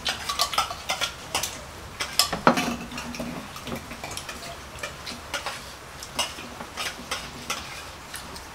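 Scattered clicks and clinks of dishes, a spoon and food being handled at a meal, coming at an irregular pace.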